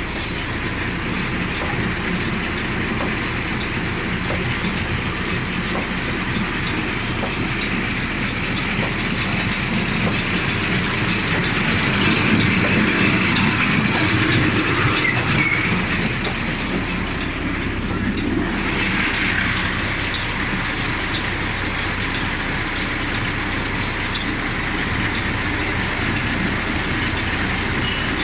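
John Deere 582 Premium round baler running without a load, a continuous mechanical clatter of chains and rollers over the steady hum of the tractor engine driving it.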